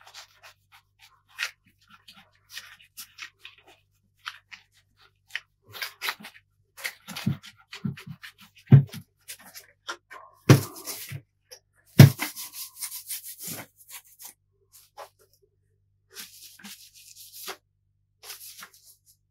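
An alcohol wipe rubbing over a glossy plastic PlayStation 3 casing, with scattered clicks and knocks as the case is handled. Three louder thuds come about nine, ten and a half and twelve seconds in, and patches of hissing rubbing noise follow.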